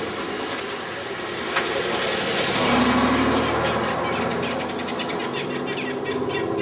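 A vehicle passing, its noise swelling to a peak about three seconds in and then fading.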